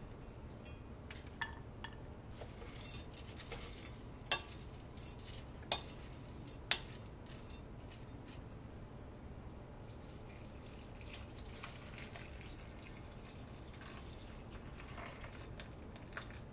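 A wooden spoon stirring uncooked rice with chopped burdock and shiitake in an enamelled pot: soft rustling and scraping, with three sharp clicks of the spoon against the pot about four, six and seven seconds in. Water is poured into the pot near the end.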